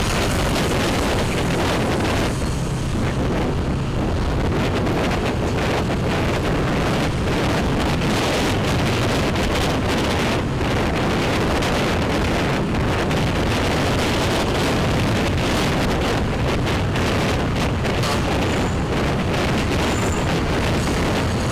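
Wind rushing over the microphone of a moving motorbike, with the bike's small engine running steadily underneath.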